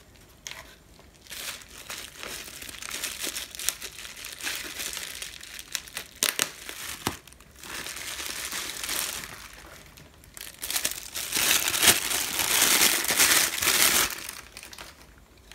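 Plastic wrapping crinkling and rustling as a camera lens is handled and unwrapped, with a few sharp clicks about six to seven seconds in. It is loudest for a few seconds near the end, as the lens is pulled out of the bag.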